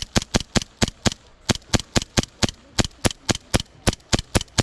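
Airsoft gun fired in rapid semi-automatic shots, about five sharp cracks a second, with two brief pauses, stopping abruptly near the end.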